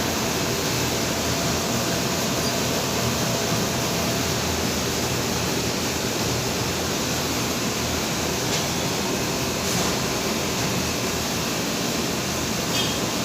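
Steady mechanical running noise, an even rushing drone with a faint hum underneath, unchanging throughout.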